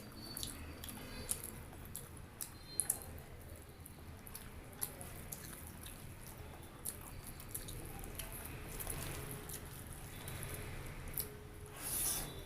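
Close-miked chewing and wet mouth sounds of someone eating rice and curry, with scattered small clicks and smacks and a louder, brief noisy burst near the end.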